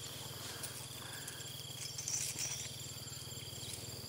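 Insects chirring in steady high tones, over a low steady hum.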